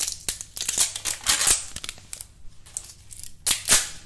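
Thin clear plastic wrapping crinkling and rustling as it is handled, in a run of sharp crackles; the loudest come about a second and a half in and again near the end.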